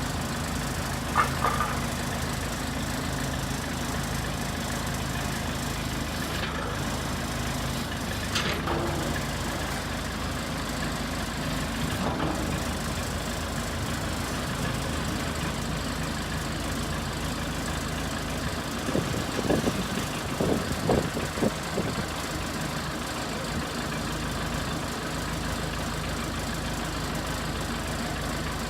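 Backhoe engine running steadily at idle, with a few short knocks and a quick cluster of knocks about two-thirds of the way through.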